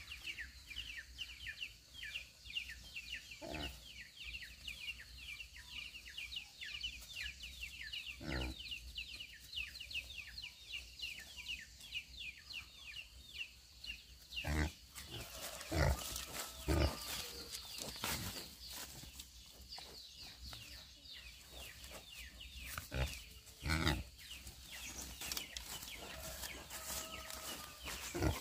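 Livestock in a pen making several short, loud sounds in the second half. Underneath runs a fast, high chirping that repeats several times a second and is strongest in the first half.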